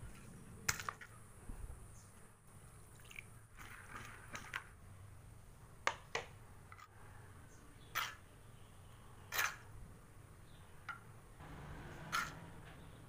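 Scattered sharp clicks and knocks of kitchen utensils being handled during food preparation, about half a dozen spaced a second or two apart over a faint low hum.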